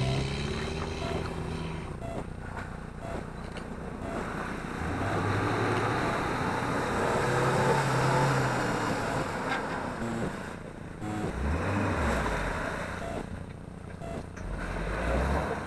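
Off-road vehicle engine revving up and falling back several times under load, over a steady rushing noise.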